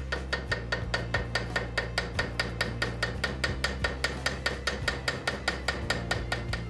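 Rapid, even metallic taps of a mallet on the end of a pointed engraving tool, about seven a second, driving its point into the end of a steel bar held in a vise to cut a touchmark stamp.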